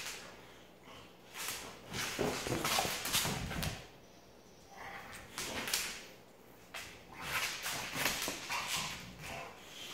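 A boxer dog playing with a toy: irregular noisy bursts of scuffling and dog sounds, busiest about two to four seconds in.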